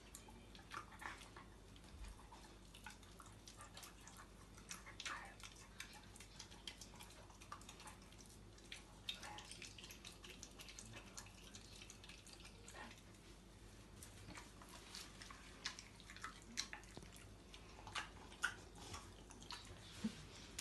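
Rottweiler puppy chewing and crunching raw food taken from a hand: faint, irregular crunches and mouth clicks.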